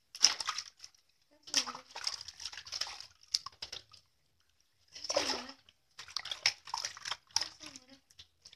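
Bath water splashing and sloshing in a large metal basin as a baby is washed by hand, in irregular bursts. Short vocal sounds come through now and then, most clearly about two and five seconds in.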